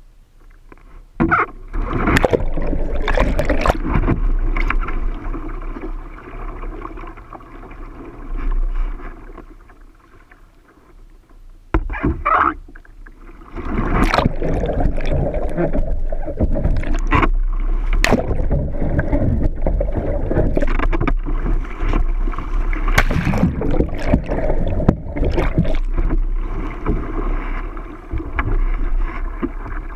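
Water splashing and rushing around a Jackson kayak and paddle as it capsizes and is rolled back upright during roll attempts, in loud spells with a quieter lull about ten seconds in. The sound turns muffled where the bow-mounted camera goes to the waterline.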